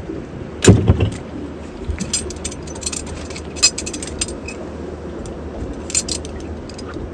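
Gear being handled: scattered clinks and jangles of small hard objects, with a louder knock just under a second in.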